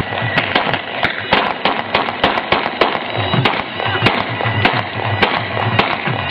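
Celebratory gunfire: guns fired into the air in a quick, irregular string of sharp shots, about three or four a second, over loud music.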